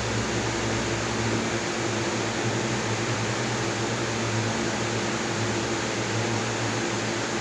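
Steady hiss with a low, even hum underneath, unchanging throughout.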